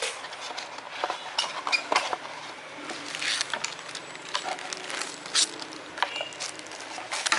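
Irregular clicks, taps and short rustles of the boxed TV box and its packaging being handled.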